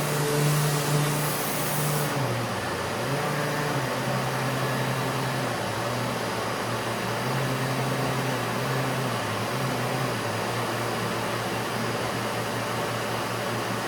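Surfprep sander running on a cabinet door together with the Festool vacuum drawing dust through the shared hose: a steady machine hum whose pitch dips and rises several times.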